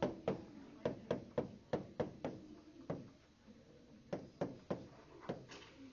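A pen tapping and knocking on the glass of an interactive touchscreen display during handwriting: an irregular run of sharp taps, two or three a second, with a pause about three seconds in.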